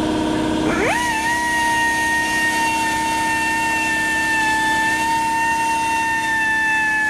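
Power drill fitted with a Rescue Bit, drilling out a broken cobalt drill bit lodged in a snapped grade 8 bolt. The motor spins up about a second in, then runs at a steady high whine.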